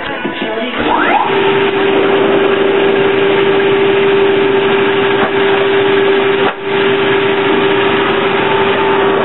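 Soviet 1K62 screw-cutting lathe spinning up about a second in, with a rising whine, then running with a steady gear whine over dense machine noise. The sound dips briefly once, about two-thirds of the way through.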